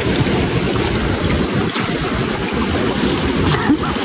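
Shallow rocky river rushing and splashing over stones close to the microphone: a loud, steady rush of water.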